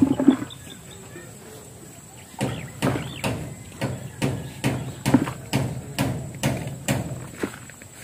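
Rhythmic strikes of a hand digging tool into the ground, about two to three a second. A short run at the start, a pause, then a steady run from about two and a half seconds in until shortly before the end.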